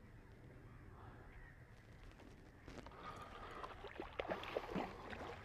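A hooked mirror carp thrashing at the surface close to the bank, with irregular splashes that start about halfway through and are busiest near the end.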